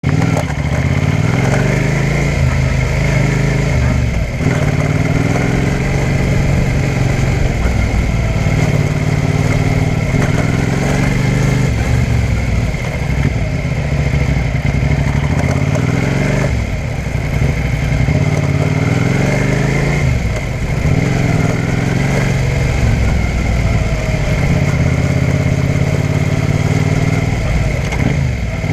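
Suzuki SV650S's 645 cc V-twin engine running, its pitch rising and dropping over and over. Under it is the crackling, chain-like noise that the owner reports at the start of first and second gear and traces to under the engine, though the chain tension and wheel alignment are correct.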